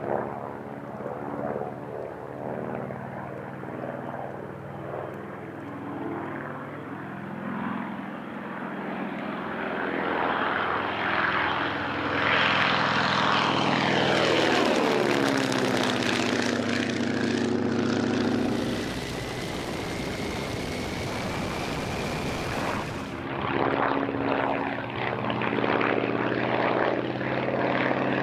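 Boeing-Stearman PT-17 biplane's seven-cylinder Continental radial engine and propeller running steadily in flight. It grows louder in the middle, and its pitch falls as the plane passes overhead.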